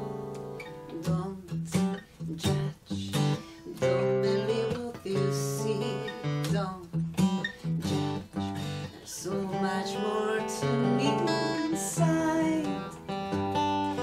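Acoustic guitar strummed and played, with a woman singing a melody over it.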